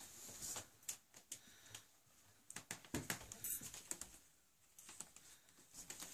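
Faint rustling of a heavy fabric curtain being pushed aside, then scattered light clicks and footsteps in a small room, with a denser run of clicks about three seconds in.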